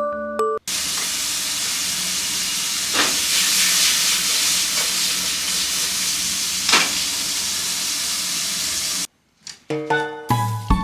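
Food sizzling in a hot frying pan: a steady hiss with a couple of louder crackles, starting and stopping abruptly. Short bits of mallet-percussion music come just before it and again near the end.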